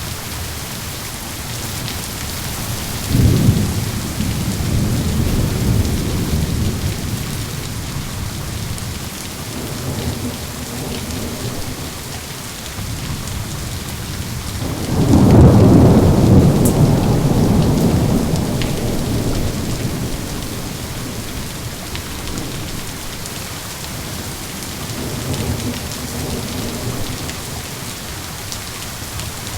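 Steady rain with rolling thunder. A rumble starts about three seconds in, a louder, longer peal of thunder comes about halfway through, and a fainter rumble follows near the end.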